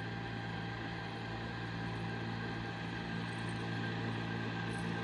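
A steady motor hum holding one constant pitch, with no change in speed or loudness.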